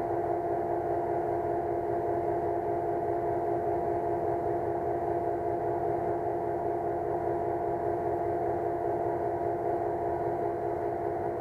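Lochinvar pool heater running and firing: a steady mechanical hum with several steady tones, no change throughout, while the water is heating up.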